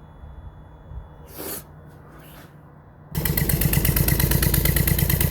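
Toyota Prius Gen 2 1.5L petrol engine being cranked by the hybrid system for a spark check, starting suddenly about three seconds in with a loud, fast, even chugging. Before that there is a low steady hum and two short rustles.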